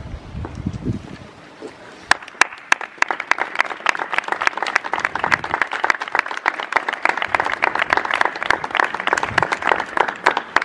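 A crowd applauding. It starts about two seconds in with a few sharp claps and becomes steady applause.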